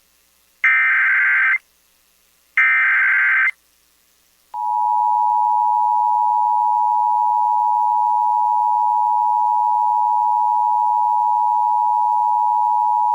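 Emergency Alert System signal: the last two SAME digital header bursts, each a warbling data burst about a second long, a second apart. About four and a half seconds in, the steady two-tone EAS attention signal starts and holds, announcing that an alert message follows.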